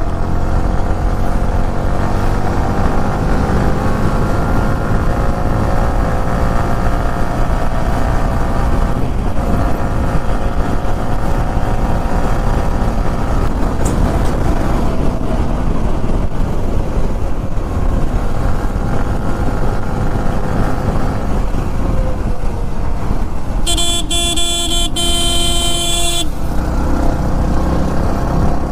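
Motor vehicle engine running steadily in traffic, with a loud vehicle horn blast lasting about two and a half seconds near the end.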